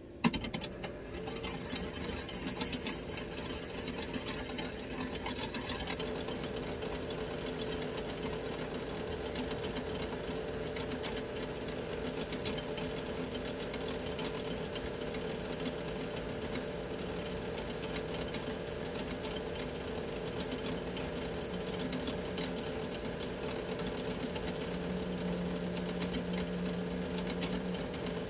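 Metal lathe switched on with a sharp click just after the start, then the spindle running steadily with a mechanical hum and whine while turning a Remington 700 barrel tenon. The lathe is running to bore the bolt-nose recess in the tenon, and a lower hum grows louder near the end.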